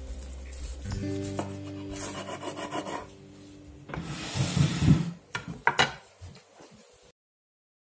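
Serrated bread knife sawing through a crusty focaccia on a wooden cutting board, with the rasping loudest about four to five seconds in. Then a couple of sharp knocks as the cut piece is set down on a ceramic plate. Background music fades under it, and the sound cuts off about seven seconds in.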